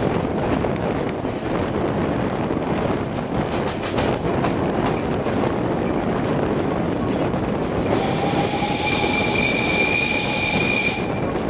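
Narrow-gauge train in motion behind a Px48 steam locomotive: the steady rumble and rattle of the coach's wheels on the rails. About eight seconds in, the locomotive's steam whistle blows for about three seconds, a steady whistle over a hiss, then cuts off.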